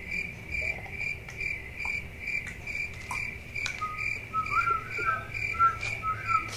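Cricket chirping steadily at one pitch, about three chirps a second, the stock sound of idle boredom. From about four seconds in, a person whistles a short idle tune over it.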